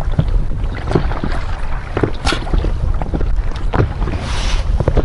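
Waves lapping and slapping against a PVC inflatable boat, with a steady low rumble of wind on the microphone and scattered light knocks. A short hiss comes about four seconds in.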